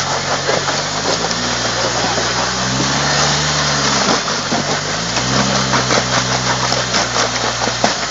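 4x4 engine working in low gear as the vehicle crawls an obstacle, revving up twice and easing off. Scattered sharp cracks and knocks run through it, from tyres and chassis on rock and wood.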